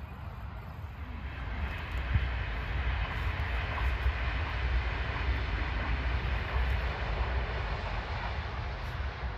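Deutsche Bahn ICE high-speed train passing some way off: a steady rushing noise of wheels and air that builds over the first two seconds and eases slightly near the end. Gusty low rumble from wind on the microphone runs underneath.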